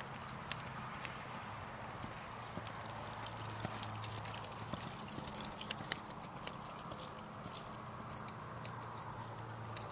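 Hoofbeats of a Quarter Horse gelding loping on a soft dirt arena, a run of dull thuds that are loudest as the horse passes close, about four to six seconds in.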